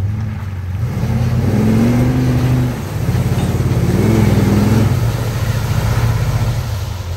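Ford Excursion's engine working under load through deep mud, revving up twice: once for about a second starting about 1.5 s in, and again about 4 s in, running steadily in between.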